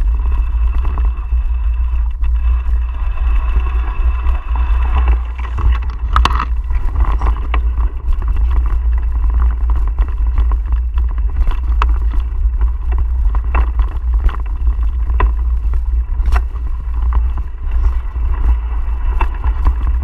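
Mountain bike riding over a bumpy dirt trail, with a loud, steady low rumble of wind and tyre noise buffeting the microphone. Scattered sharp clicks and rattles come from the bike going over bumps, a cluster of them about six seconds in.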